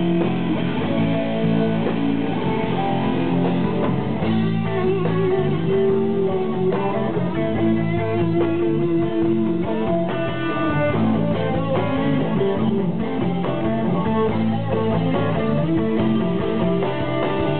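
Live rock band playing an instrumental passage, with electric guitar to the fore over bass and drums.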